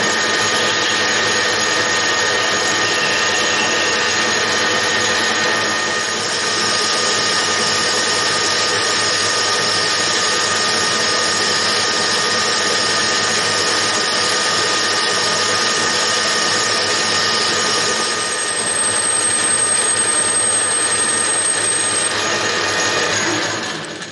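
Metal lathe running with its three-jaw chuck spinning, a steady machine whine with several held tones, which winds down and stops near the end.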